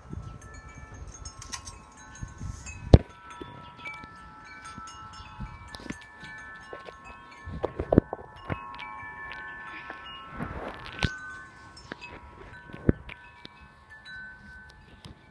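Irregular clear ringing chime tones that overlap and hang on, struck at random, with scattered sharp knocks, the loudest about 3 seconds and 8 seconds in.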